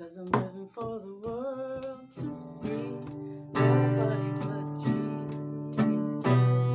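Acoustic guitar being strummed. The chords ring out, with a few hard strokes in the second half.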